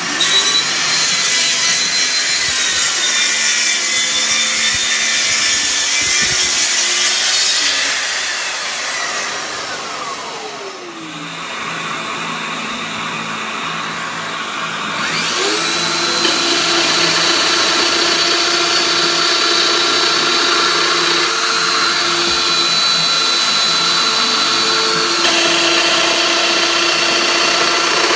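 Festool power tool motors with a high whine: one winds down and stops about eight to eleven seconds in, then a Festool Domino joiner spins up about fifteen seconds in and runs steadily.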